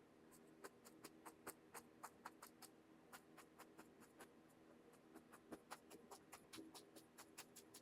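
Paintbrush tapping and dabbing on a canvas in quick, faint, soft taps, about four a second and quicker near the end, as splashy marks are stippled into wet oil paint.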